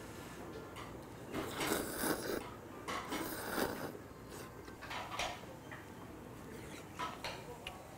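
A man slurping ramen noodles from a bowl in two long, noisy draws, about one and a half and three seconds in, followed by a few shorter eating sounds.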